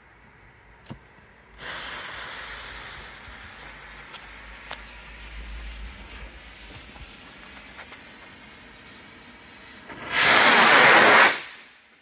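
Bright Star Crown Jewel Gold firework burning with a steady hiss for about eight seconds. Near the end it gives a much louder rush of hissing for about a second, then dies away.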